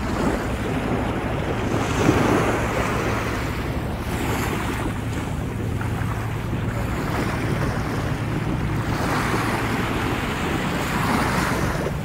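Sea waves washing onto the shore, heard close up at the water's edge, swelling about two seconds in and again near the end. Wind buffets the microphone throughout.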